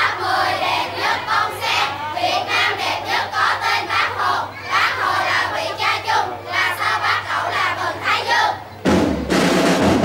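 A chorus of children's voices chanting together in a quick rhythm. Near the end the voices stop and drums break in suddenly.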